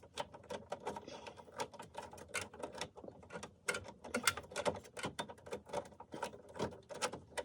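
Quick, irregular clicks and taps, several a second, of hard plastic dashboard parts being handled and fitted.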